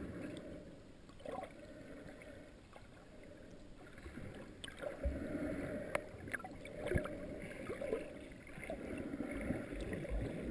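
Muffled underwater water noise heard through a sealed GoPro dive housing as the camera moves through shallow water. It gets louder about four seconds in, and a few sharp clicks come about five, six and seven seconds in.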